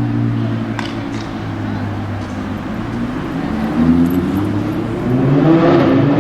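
Audi R8 V10 Plus's V10 engine through a Capristo exhaust running at low revs, then the revs climb and it gets louder over the last two seconds or so.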